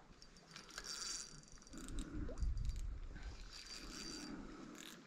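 Faint clicks and scrapes from a fishing rod and spinning reel being handled, with a thin high tone sounding twice for about a second each.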